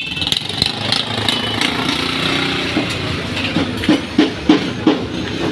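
An engine running steadily, with a quick run of about five knocks in the second half.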